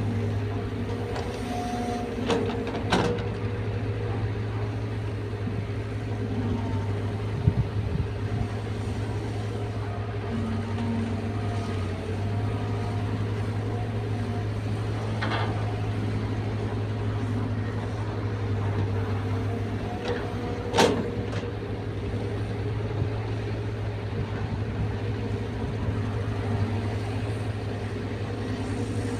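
Caterpillar 320 excavator's diesel engine running steadily under work, with a few sharp metallic knocks from the working machine spread through it.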